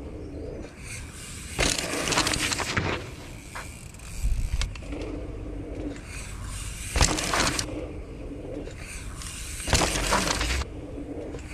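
Mountain bike tyres crunching and skidding over a packed-dirt jump as the rider passes, in three bursts of about a second each.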